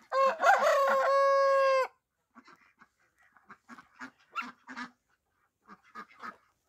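A rooster crows once: a loud call of about two seconds that rises at the start, then holds steady and cuts off sharply. After it there are only faint, scattered short sounds.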